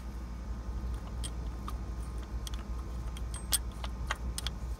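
Scattered light clicks and taps of metal on metal as a diesel fuel injector and its hold-down bracket are wiggled by hand in the cylinder head of an International DT466, with the injector not yet seated. A steady low hum runs underneath.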